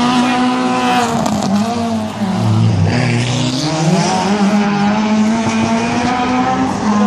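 Peugeot 106 competition car's engine running hard at high revs through a cone slalom. About two and a half seconds in the revs drop sharply, as for lifting off and changing down, then climb back up to high revs.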